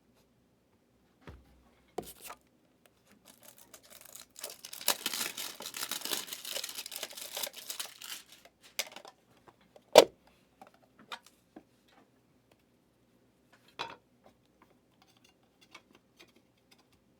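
Plastic card sleeve and protective holder being handled as a trading card is put away for protection: a few light knocks, several seconds of crinkly rustling, then one sharp click about ten seconds in and scattered lighter taps.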